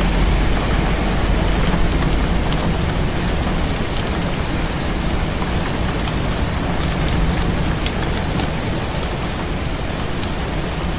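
Heavy rain falling steadily on a window, with scattered sharper drop ticks and a low rumble underneath that is strongest in the first couple of seconds.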